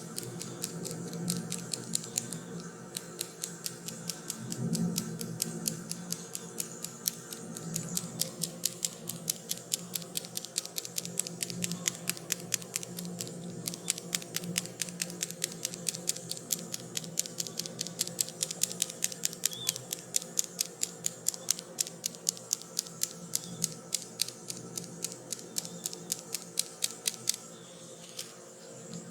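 Rapid, crisp tapping during a head massage, several strikes a second in an even rhythm, over soft background music with sustained low tones. The tapping briefly thins out near the end.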